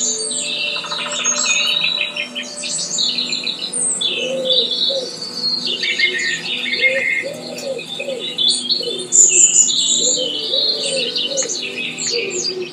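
Woodland birdsong: several songbirds chirping and trilling in a dense chorus, joined from about four seconds in by repeated low cooing calls, over a steady, held ambient-music drone.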